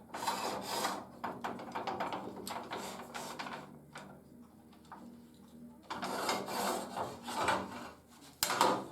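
Handling noise: irregular rubbing and scraping as metal and wooden tool parts are moved about by hand, with a sharp knock near the end.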